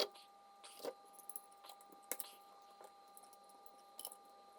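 Scattered light clicks and taps at irregular intervals, as of small objects being handled, the sharpest right at the start. A faint steady high tone runs underneath.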